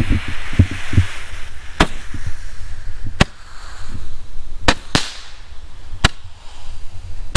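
Mini Roman candle, stood in sand, hissing as it burns and then firing five sharp pops, a second or so apart and irregular, as it shoots its balls of fire.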